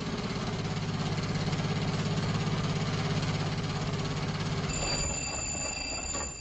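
Car engine running with a rapid, even firing rhythm, dying away about five seconds in. A high, steady ringing tone comes in just before it stops.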